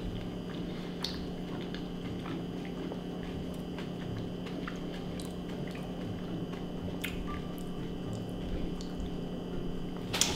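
Close-miked mouth sounds of a man eating a spoonful of non-dairy cookie dough frozen dessert: soft wet squishing and chewing with scattered small clicks, over a steady low hum.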